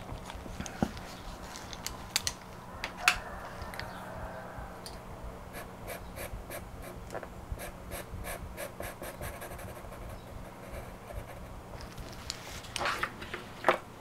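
Pastel pencil scratching on paper in quick short strokes, several a second, through the middle of the stretch, after a few scattered light taps and clicks. A low steady hum lies underneath.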